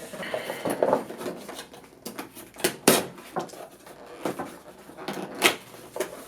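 Cardboard and plastic packaging being handled and pulled open by hand: irregular rustling and scraping with several sharp clicks and snaps, the loudest about three seconds in and again near the end.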